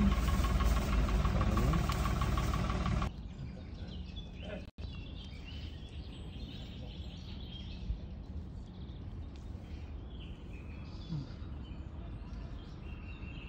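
An engine running steadily for the first three seconds, then cut off abruptly. After that, quiet outdoor background with birds chirping now and then.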